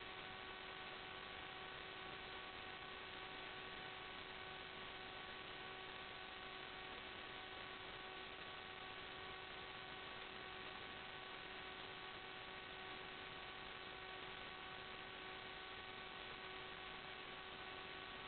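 Steady electrical hum over a bed of hiss, a few evenly spaced steady tones that never change: noise on the audio track of a raw FPV video recording, with no sound of the drone itself.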